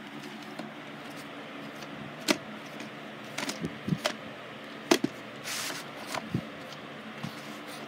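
A plastic clamshell VHS case being opened and the cassette handled: scattered clicks and knocks with a brief rustle, over a faint steady hum.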